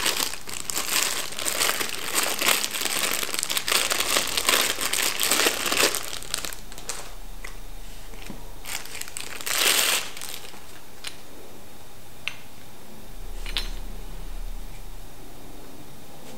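Clear plastic wrap crinkling as it is peeled off the parts of a hand coffee mill, dense for the first six seconds, with another short burst near the ten-second mark. A few light clicks follow.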